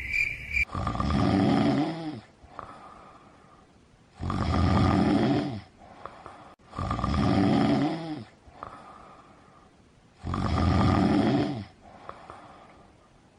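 Loud snoring: four long snores about three seconds apart, each followed by a quieter breath out. Crickets chirp through the first second, then stop suddenly.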